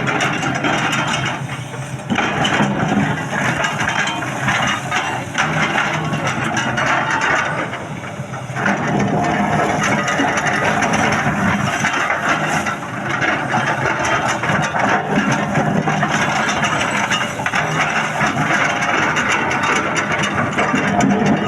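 Excavator working: its engine running under a dense, continuous clatter of rock and metal scraping and rattling, with brief lulls about 2, 8 and 12 seconds in.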